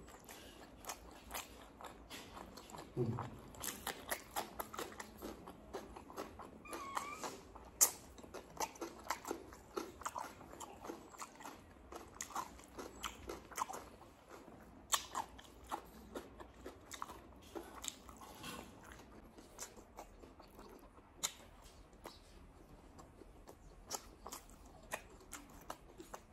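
Close-miked eating by hand: chewing with wet mouth smacks and lip clicks, a quick irregular run of sharp clicks, as mouthfuls of rice and colocasia-leaf curry are eaten.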